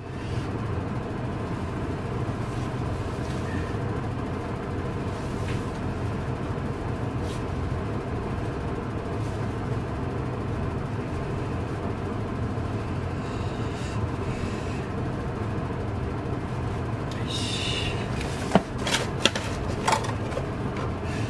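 A steady low whooshing background noise. Near the end there is a brief rustle and a few sharp knocks as a cardboard product box is lifted and handled.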